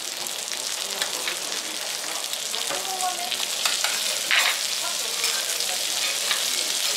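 Fish fillet and melting butter sizzling on a teppanyaki steel griddle: a steady frying hiss with scattered crackles, a little louder past the middle.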